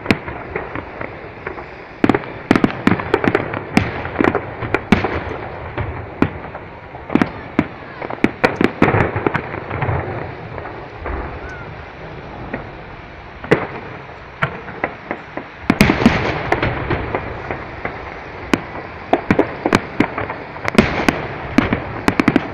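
Fireworks display: aerial shells bursting in a run of sharp bangs and crackles, with a dense flurry of crackling about two-thirds of the way through and again near the end.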